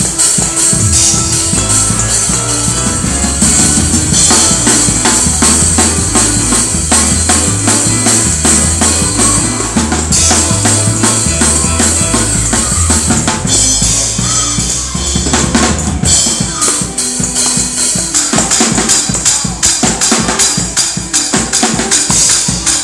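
Drum kit played fast in a gospel praise-break groove: dense snare and bass-drum strokes under a steady wash of cymbals. Low bass notes step along underneath and drop out about two-thirds of the way through, leaving the drums alone.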